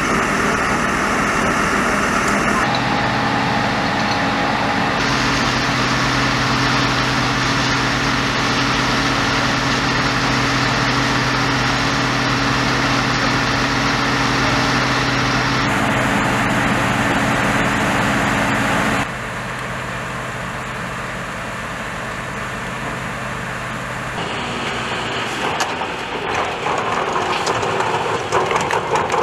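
Fire engine's engine and pump running with a steady hum under a broad rushing noise of fire and hose water. The sound changes abruptly several times, dropping in level about two-thirds of the way through, and near the end irregular knocks and clatter come from firefighters handling hoses and a portable fire pump.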